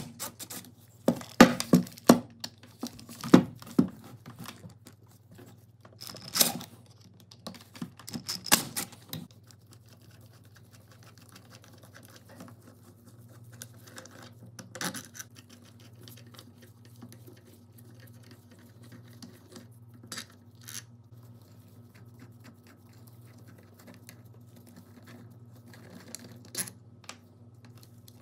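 Handling noises on a drill's metal housing: sharp clicks and knocks over the first several seconds, then quieter scraping and a few scattered clicks as a screwdriver works a small screw. A faint steady low hum runs underneath.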